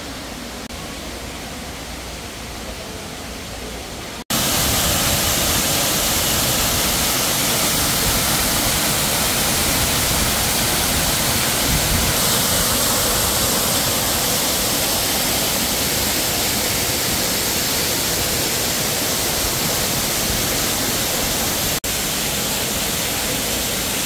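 Indoor artificial waterfall pouring down a rock face: a steady rush of falling water. It is fainter for the first few seconds, then about four seconds in it cuts sharply to the full, loud rush close up.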